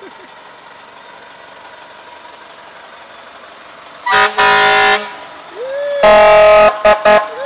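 Fire department tanker truck sounding its air horn: one long loud blast about four seconds in, then a siren whooping up and down alongside a second long blast and two short toots near the end. The truck's engine runs low underneath before the horn.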